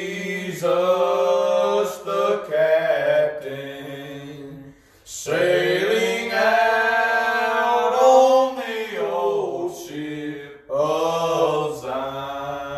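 A man's voice singing a gospel hymn, apparently unaccompanied, in long held phrases with short breaks about five seconds in and again near the ten-second mark.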